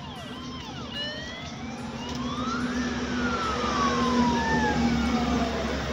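A siren wailing over road traffic noise. It opens with a few short falling whoops, then one long tone rises in pitch for about two seconds and falls slowly, while the traffic noise grows louder.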